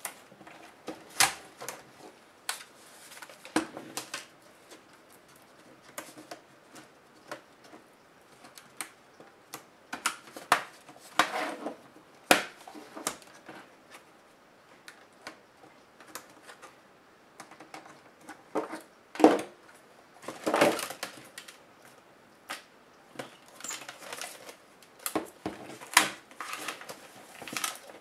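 Hands handling a laptop LCD panel and its metal frame on a work table: irregular clicks, knocks and light rattles of metal and small parts, with short scraping rustles as the panel is shifted and turned.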